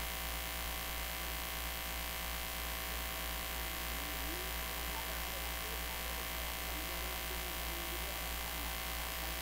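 Steady electrical mains hum from a switched-on sound system with no music playing. Faint voices waver in the background.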